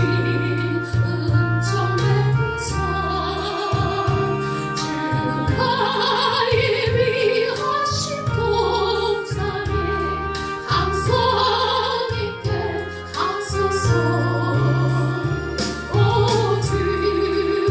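A gospel song sung with vibrato over an instrumental accompaniment with held bass notes.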